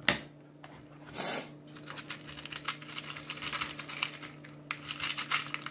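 Small hand tools and parts being handled: one sharp click at the start, a short rustle about a second in, then a run of light, irregular clicks and rattles.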